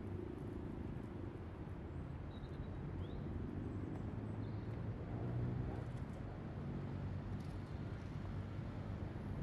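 Steady hum of a motor vehicle engine in road traffic, swelling about five seconds in as a vehicle passes close, with a few faint high chirps in the first half.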